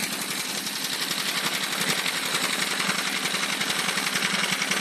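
Small fishing boat's inboard engine running at a steady speed, its exhaust beating in a rapid, even pulse.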